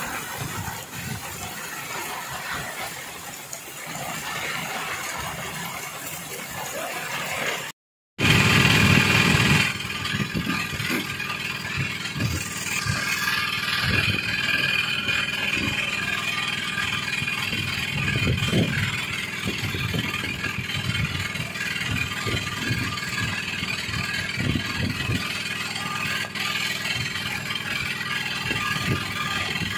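Wind and rough sea washing against a small fishing boat. After an abrupt cut about eight seconds in, a boat engine runs steadily.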